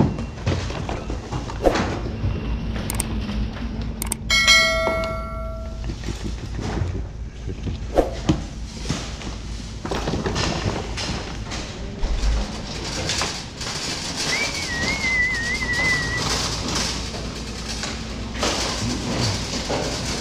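Store ambience with things knocking and clattering, and a single ringing metallic ding about four seconds in. A short warbling whistle sounds about halfway through.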